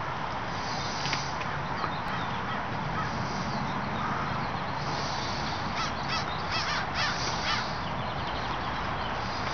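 Crows cawing in short runs of repeated harsh calls, about a second in and again from about five seconds in, over a steady low hum.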